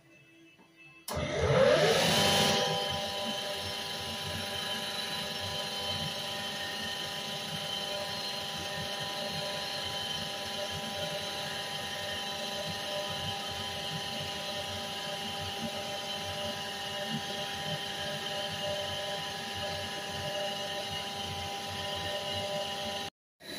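Cylinder-head surfacing machine starting up about a second in, its pitch rising as it spins up, then running steadily while it resurfaces a Simca Aronde cylinder head to machine out the firing-ring indents. The sound drops out briefly near the end.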